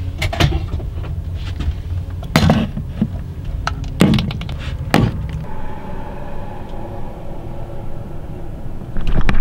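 Low, steady rumble of a moving vehicle, broken by several sharp knocks and clunks; the rumble eases about halfway through.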